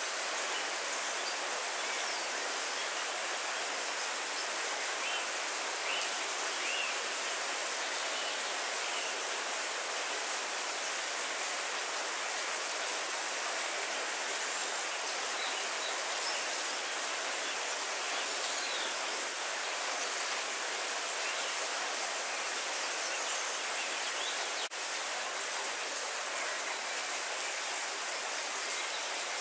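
Steady heavy rain falling on trees and foliage, an even, unbroken hiss.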